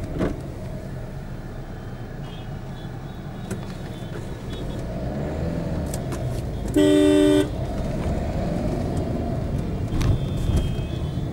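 Dense city traffic of motorcycles, auto-rickshaws and cars running with a steady low rumble. A loud vehicle horn blasts once about seven seconds in for just over half a second, with fainter, higher horn toots a couple of seconds in and near the end.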